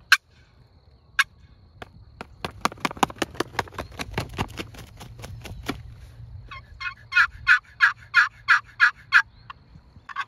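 Wooden box turkey call played as a fly-down cackle: a quickening run of short clucks, with a hat beaten to mimic a hen's wingbeats, then a run of loud yelps about three a second near the end.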